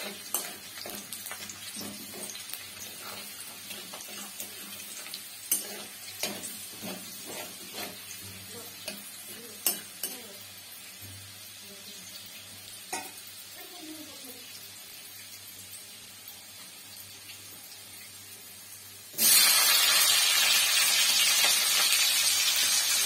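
Oil in a steel kadai quietly sizzling around chopped aromatics, with a spatula now and then scraping and clicking against the metal pan. About nineteen seconds in, chopped capsicum goes into the hot oil and a loud sizzle starts suddenly and keeps going.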